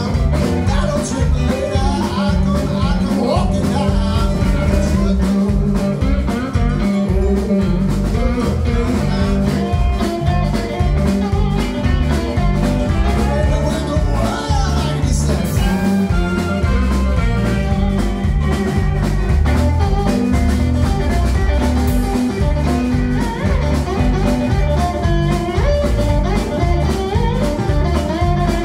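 Live blues band playing a number with a steady drum beat: electric guitars, bass and drums, with saxophone and keyboard in the line-up.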